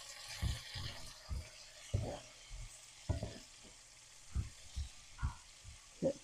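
Sliced onions and bell peppers sizzling in a hot skillet while being stirred with a spoon, which knocks and scrapes against the pan a dozen or so times at uneven intervals.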